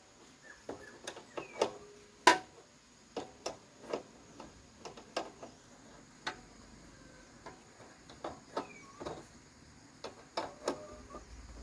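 Irregular clinks and taps of metal tools and parts being handled during motorbike repair, some with a brief metallic ring, the loudest knock about two seconds in.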